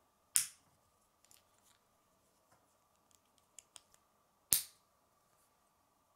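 K'nex plastic rods snapping into connectors by hand: two sharp clicks, the first just under half a second in and the second about four and a half seconds in, with a few lighter ticks of the pieces being handled in between.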